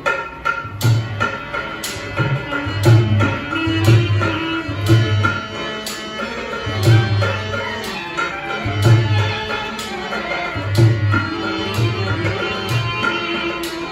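Rajasthani folk music starting suddenly: a hand drum beats deep strokes about once a second under a steady, held melody from a pitched instrument.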